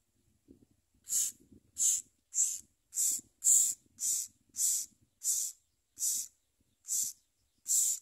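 Nestling songbirds begging: a regular run of short, harsh, hissing calls, about three every two seconds, starting about a second in.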